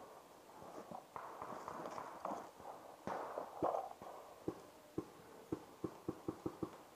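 Paintball marker fire: about eight sharp cracks over two seconds, coming quicker toward the end, after a few seconds of rustling and shuffling of players moving behind cover.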